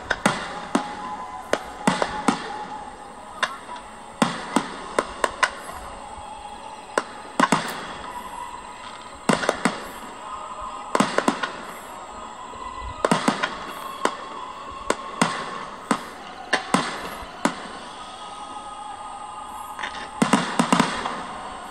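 Fireworks bursting: many sharp bangs at irregular intervals, with a quick volley of bangs near the end. Music plays steadily underneath.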